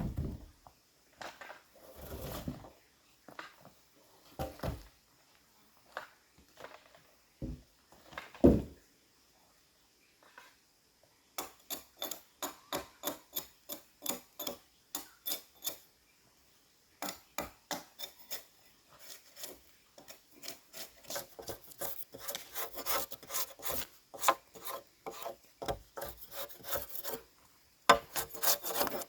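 A hand tool working wood: a few scattered knocks and scrapes, then quick rhythmic rasping strokes, about three a second, with a short pause midway.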